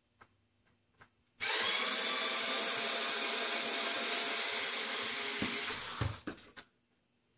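Power screwdriver runs steadily for about four and a half seconds, backing a screw out of the wooden pedal lyre block of a grand piano. A few light clicks come just before it starts and as it winds down.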